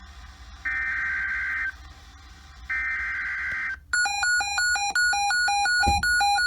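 Emergency Alert System SAME header: two bursts of digital data screech, about a second each and a second apart. This is the coded header that opens an EAS alert. Then a fast electronic beeping that alternates between two pitches, about three beeps a second, cuts off abruptly near the end.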